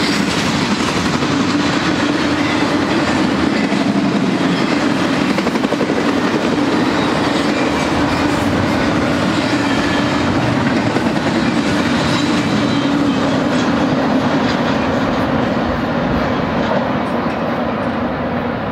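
Loaded double-stack intermodal freight cars rolling past on steel wheels, a steady loud rail noise that fades over the last few seconds as the end of the train moves away.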